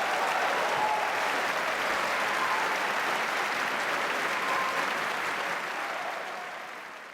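Audience applauding: a steady wash of clapping that fades out near the end.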